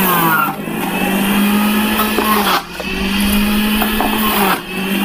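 Havells Rigo 2 juicer mixer grinder's 500 W motor running at its lowest speed, juicing vegetable pieces pushed down the feed chute. It gives a steady motor hum whose pitch sags briefly three times as pieces are pressed into the cutter and the motor takes the load.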